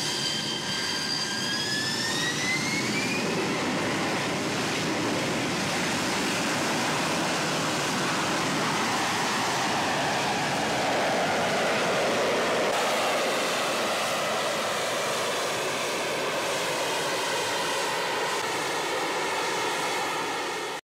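AV-8B Harrier II jump jet's Pegasus turbofan: a rising whine over the first three seconds as the engine spools up, then steady jet noise as the aircraft lifts off vertically and hovers.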